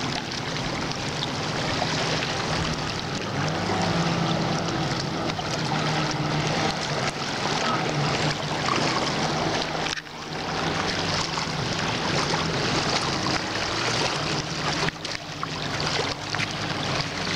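Wind blowing across the microphone, with small waves lapping at a rocky lakeshore, steady throughout and dipping briefly about ten seconds in. A faint low drone runs underneath.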